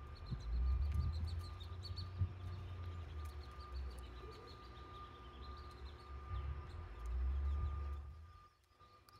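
Outdoor ambience: an irregular low rumble of wind buffeting the phone microphone, with faint small chirps and a steady faint high tone behind it. The rumble drops away about eight seconds in, leaving the quieter background.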